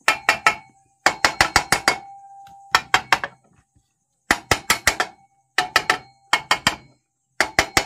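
A hammer lightly tapping the two halves of a Honda SP125 BS6 engine's crankcase together to seat them. The blows come in quick runs of about three to six, about six runs in all, and each run leaves a short metallic ring.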